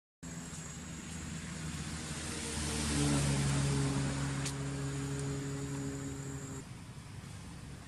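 A motor vehicle's engine running steadily, swelling louder about three seconds in and then easing off, its hum stopping abruptly near the end.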